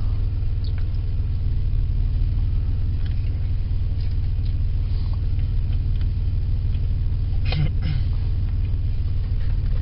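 Steady low rumble of a car's idling engine, heard from inside the cabin, with a few faint clicks and a brief vocal sound about seven and a half seconds in.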